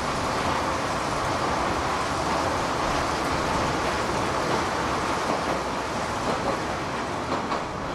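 Open-top rail cart running along the track inside a tunnel: a steady rumble of wheels on rails and motor. A few sharp clacks come in the last few seconds.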